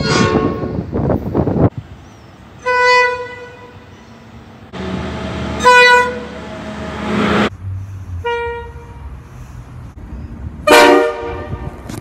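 Diesel freight locomotive horns sounding five short blasts, each a second or less, from different trains cut one after another. The blast near the end is the loudest and sounds several notes at once. The low rumble of the passing locomotives lies between the blasts.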